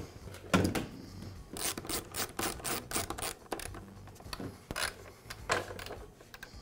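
Plastic leaf-blower tube and housing being handled and fitted together: irregular clicks, knocks and rubbing, densest in the first few seconds, then a hand screwdriver turning a screw into the blower housing.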